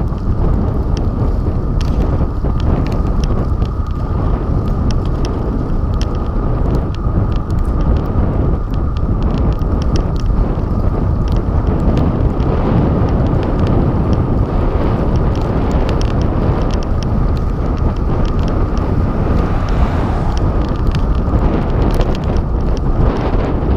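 Wind buffeting the microphone of a handlebar-mounted camera on a moving bicycle, a steady loud rumble, mixed with tyre and road noise and scattered small clicks and rattles.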